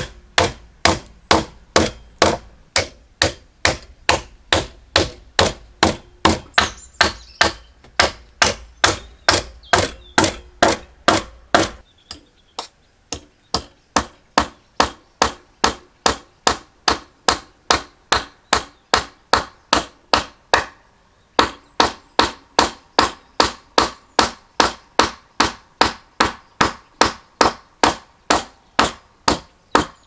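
Hammer driving nails into log roof poles: a steady run of sharp blows, about two and a half a second, with a short pause about 21 seconds in.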